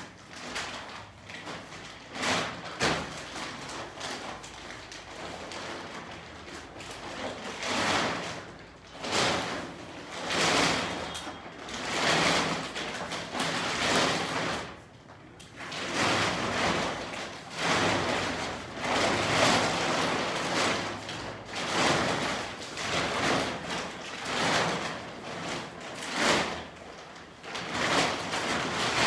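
Synthetic tent fabric of a Decathlon Quechua MH100 tent rustling and swishing in repeated irregular sweeps as it is unfolded and spread out by hand, the sweeps growing louder after the first third.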